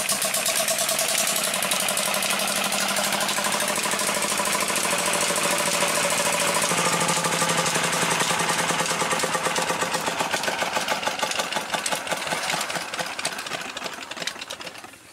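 Old Petter stationary diesel engine running steadily with a rapid, even firing beat while driving a well pump. Its note shifts a little about seven seconds in, and it fades near the end.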